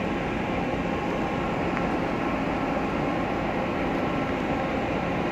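Steady mechanical drone of engines and machinery, even in level throughout, with faint steady hum tones through it.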